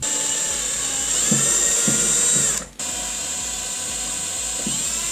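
Small cordless power driver running in two spells with a high whine, its pitch shifting with speed and a brief stop between the spells, while backing out the screws of an outlet wall plate.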